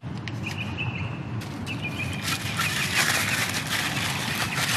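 Paper wrapping crinkling and rustling as a small clear plastic vent is unwrapped by hand, with dense, irregular crackling from about a second and a half in.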